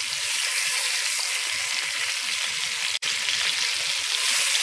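Beef short ribs searing in hot oil in a cast-iron Dutch oven: a steady sizzle, with a momentary dropout about three seconds in.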